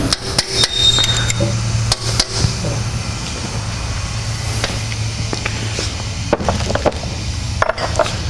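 Light metal clicks and taps of hand tools working a loosened freeze plug in a Cummins 5.9L engine block, over a steady low hum. A few sharper knocks come near the end.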